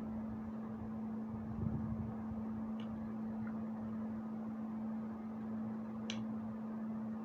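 Steady low electrical hum at a single pitch with a hiss underneath. A soft thump comes about two seconds in, and faint clicks come around three and six seconds in.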